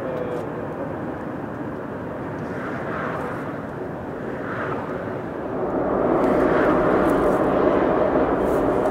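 Boeing 777-300ER's twin GE90 jet engines rumbling as the airliner touches down and rolls out along the runway. The jet noise grows louder about six seconds in.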